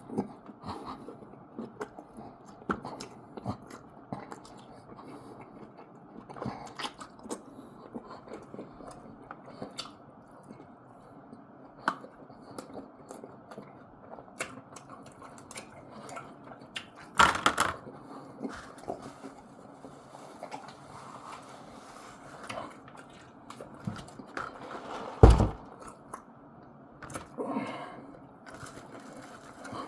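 A person eating close to the microphone: chewing and wet mouth sounds with many small clicks, and two louder knocks, one a little past halfway and one near the end.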